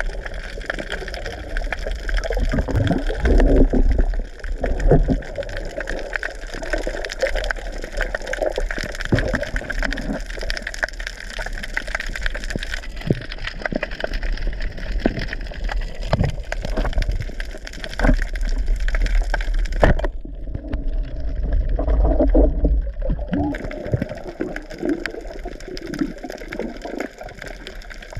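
Muffled underwater noise picked up by a submerged camera as a diver swims: a rushing, gurgling water wash with a low rumble and scattered clicks and knocks.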